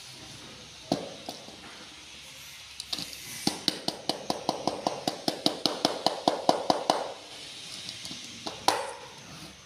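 Plastic clicking from Schneider miniature circuit breakers being handled: one click about a second in, then a quick even run of about five clicks a second for some three and a half seconds, then one loud snap near the end.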